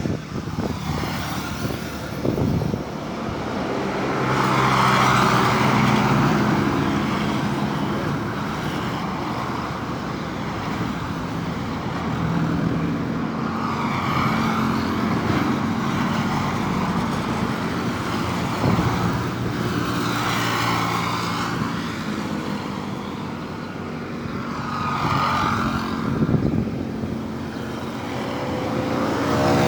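Road traffic passing close by: a series of vehicles, each swelling up with engine and tyre noise and fading away, over a low, steady engine hum.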